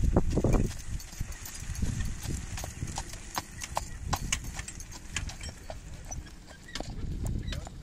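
Horse trotting in harness on sand, its hoofbeats mixed with sharp irregular clicks and rattles from the light four-wheeled carriage and harness it pulls.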